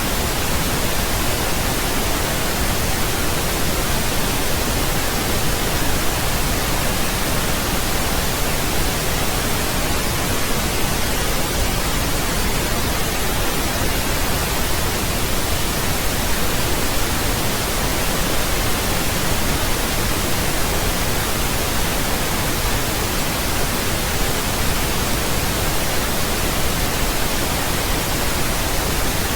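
Steady synthetic pink noise: an even, unchanging hiss spread across the whole range, with no breaks or events.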